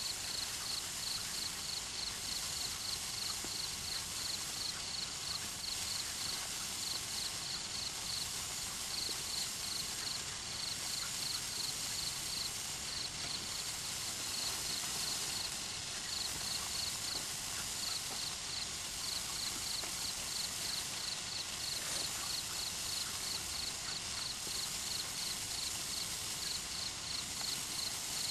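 Neon sparkler burning with a steady fizzing hiss and light crackle, while crickets chirp in quick pulsed trills.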